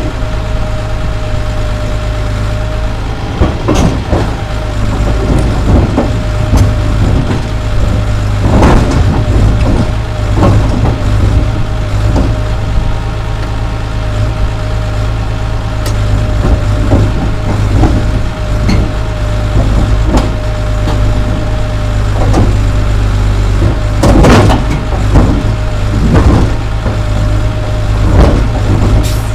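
Caterpillar D3C bulldozer's diesel engine running steadily, heard from the operator's cab, with a steady whine over it and frequent knocks and clanks from the machine as it moves.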